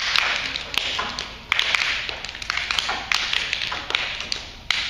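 Rapid runs of taps and clicks from a stage performance, coming in bursts that start sharply about every second and a half and then fade.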